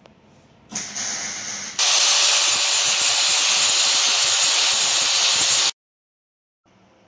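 Angle grinder grinding down weld beads on a steel square tube: a loud, steady grinding hiss with a constant whine through it, cutting off suddenly near the end. A shorter, quieter stretch of similar noise comes about a second in, just before it.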